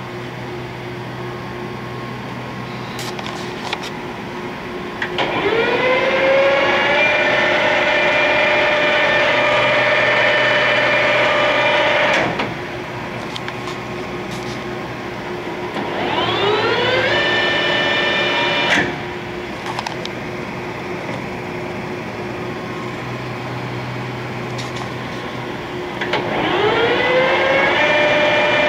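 1968 Clausing Colchester 8050 geared-head lathe spindle started three times. Each time the headstock gears whine, rising in pitch as the spindle and chuck come up to speed, then run steadily. The first two runs stop abruptly, after about seven seconds and about three seconds. A steady hum runs underneath.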